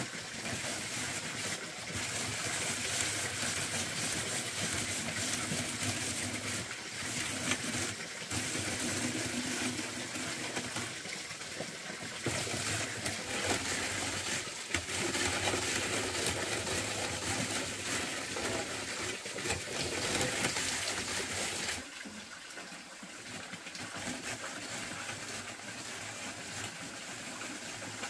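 Steady rush of running water. Part way through it becomes quieter and thinner.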